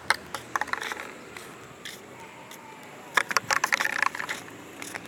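Dogs playing with a toy: irregular bursts of scraping, crackling clicks, in two busy clusters, one just after the start and another about three seconds in.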